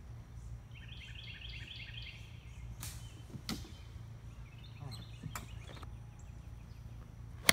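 A bird sings a quick run of repeated chirps about a second in, over a steady low outdoor hum with a few faint clicks. Right at the end a golf club strikes a ball with one sharp crack.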